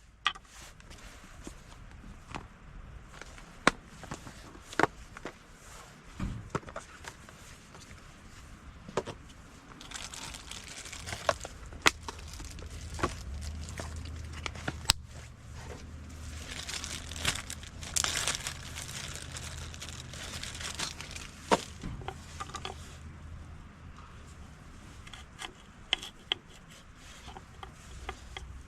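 Crinkling and rustling, as of things being handled, with many scattered sharp clicks and taps. A low steady rumble comes in about a third of the way through and fades out before two-thirds.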